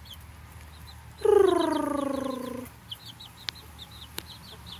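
Baby chicks peeping, a steady scatter of short high chirps. About a second in, a loud drawn-out call lasting about a second and a half slides down in pitch. Two sharp clicks come near the end.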